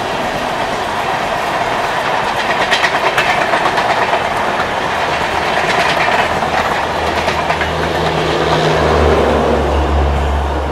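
LHB passenger coaches of an express train passing at speed, their wheels clattering over the rail joints in quick clicks. A low steady hum comes up in the last few seconds as the tail of the train goes by.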